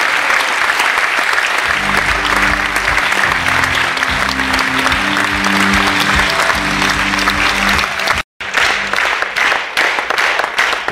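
Audience applauding, with music coming in about two seconds in and playing under the clapping. The sound drops out for a moment after about eight seconds, then the clapping goes on.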